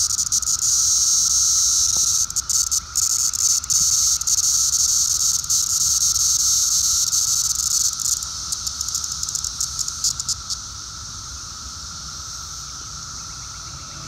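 Periodical cicada (Brood X Magicicada) held between gloved fingers, giving a loud, buzzy distress call that stutters on and off: the defensive squawk a cicada makes when picked up. The call stops about ten and a half seconds in, leaving a quieter steady drone.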